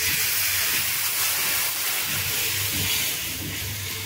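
Blended vegetable purée poured into hot oil and whole spices in a frying pan, hissing and sizzling hard as it hits the oil. The hiss slowly dies down as the pan fills.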